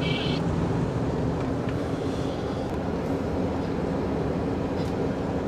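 Car engine and tyre noise heard from inside the cabin while driving: a steady low rumble with an even hum.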